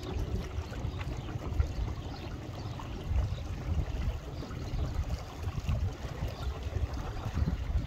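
Wind buffeting the microphone in uneven gusts, a low rumble over a steady outdoor hiss.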